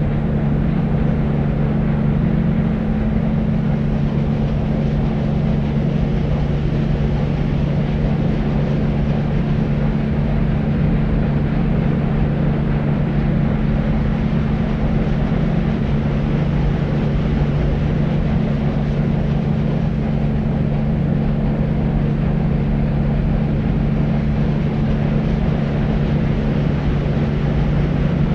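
Deep white noise: a steady, low-weighted rushing noise with a constant low hum in it.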